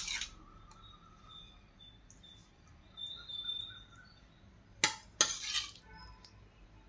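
Steel serving spoon clinking as paneer filling is scooped and spooned onto a chapati, with a couple of sharp metallic clinks about five seconds in.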